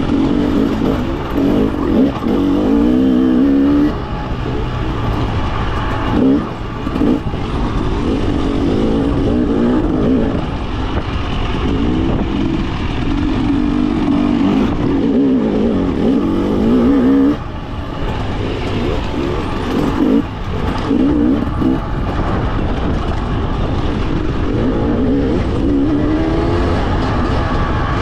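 Husqvarna TE300 fuel-injected two-stroke single-cylinder dirt bike engine under way on a trail, its pitch rising and falling with the throttle, with short drops off the throttle about four, six, seventeen and twenty seconds in.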